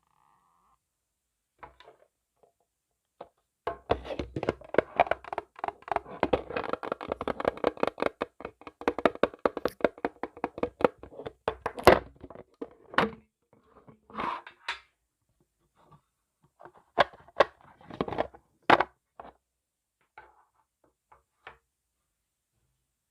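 Fingers tapping and scratching directly on an earphone microphone: a dense run of rapid taps and crackles for about ten seconds, then scattered single taps and clicks.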